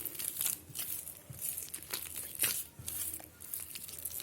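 Yeast dough being kneaded by hand on a kitchen counter: irregular sticky tearing and squishing strokes as it is stretched and pressed smooth with a little butter.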